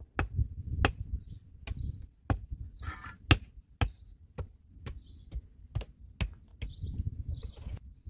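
Short-handled digging tool striking stony earth over and over, about two sharp blows a second, with dirt and gravel crunching between blows.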